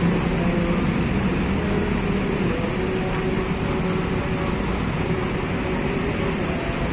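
Large diesel coach bus idling, a steady engine hum with the air conditioning running.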